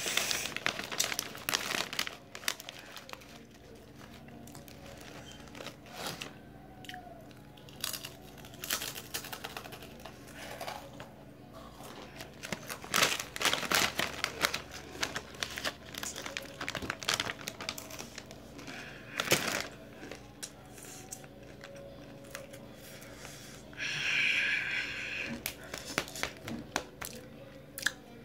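Shiny plastic Takis chip bag crinkling and rustling again and again as it is handled and chips are pulled out, in irregular crackly bursts, loudest about halfway through.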